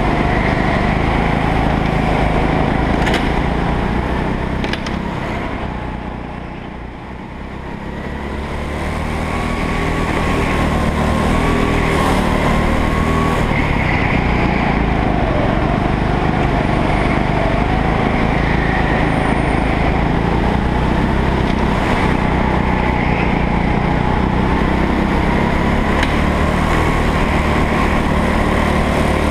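Go-kart engine running at racing speed, heard from on board, its note rising and falling through the lap. It goes quieter for a moment about seven seconds in, then builds up again.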